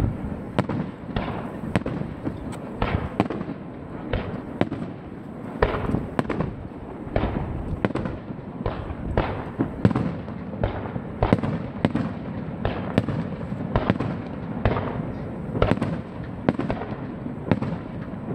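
Aerial fireworks shells bursting in quick succession, one or two sharp bangs a second, each trailing off in echo, over a continuous low rumble.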